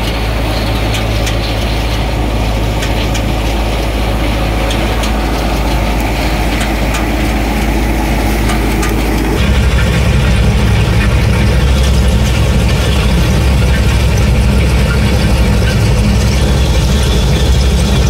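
Punni Grain Cruiser combine harvester running, a steady engine hum under a clicking mechanical rattle. About nine seconds in the sound changes abruptly to a deeper, slightly louder hum.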